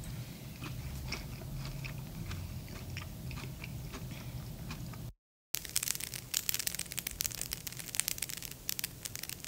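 A person chewing a mouthful of food with soft crunching. About five seconds in, the sound cuts to dead silence for a moment, then a dense crackling runs on to the end.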